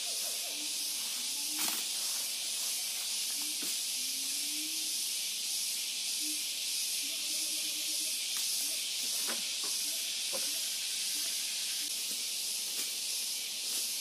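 Steady high-pitched insect chorus, typical of cicadas in tropical rainforest, with a few sharp cracks of twigs and leaf litter underfoot. A few faint, short, low calls are heard here and there.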